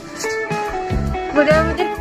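Background music led by guitar, with held notes and a voice line coming in about one and a half seconds in.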